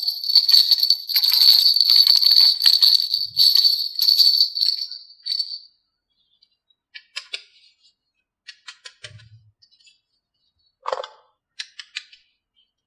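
Jingling bells in a music track, fading out about five and a half seconds in, followed by a few soft scattered clicks and taps.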